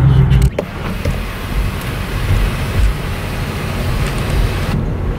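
Steady road and engine noise inside a moving car. The sound changes abruptly about half a second in and again near the end.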